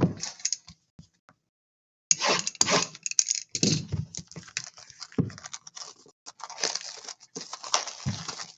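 Plastic wrapping crinkling and tearing as a trading-card pack is opened, with cards handled in rapid small clicks and rustles. It starts about two seconds in.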